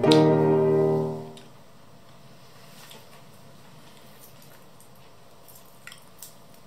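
Background music ending on a last sustained chord that dies away within about a second and a half, leaving faint room tone with a few soft clicks near the end.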